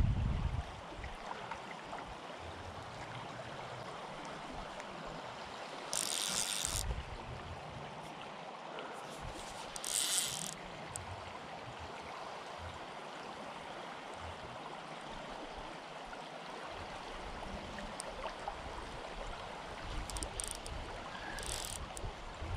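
Steady rushing of a fast-flowing river over a rocky bed, with brief hissing sounds about six and ten seconds in.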